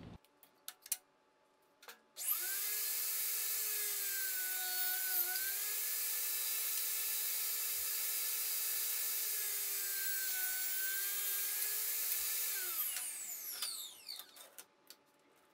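Portable table saw switched on and running steadily while ripping a cedar fence picket into 2-inch slats; its pitch dips briefly twice as the blade takes the load of the cut. Then it is switched off and winds down with a falling pitch. A few clicks and knocks come before it starts and after it stops.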